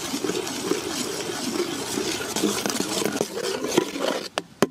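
Metal skimmer ladle stirring thickening milk in an aluminium pot, a steady scraping and sloshing with a few sharp clicks near the end as the ladle knocks the pot.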